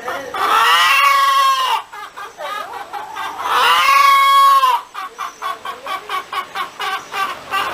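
Hen cackling: a run of quick short clucks broken by two long drawn-out calls, the first about half a second in and the second about three and a half seconds in.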